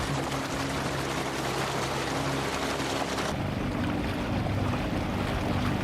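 Steady rush of water with a low hum underneath. A little over three seconds in it changes abruptly to a duller rush with a stronger low hum.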